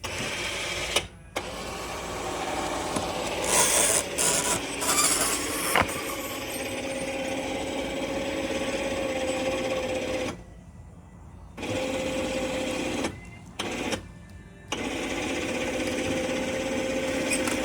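ATV-mounted electric winch running under load, a steady motor whine as it hauls a fence section upright. It stops about ten seconds in, is run again in a few short stop-start bursts, then runs on steadily.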